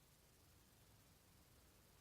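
Near silence: faint low hiss only, as in a muted gap in the audio track.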